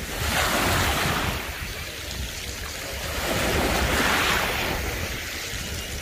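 Small sea waves washing in at the shore, swelling twice, with wind rumbling on the microphone.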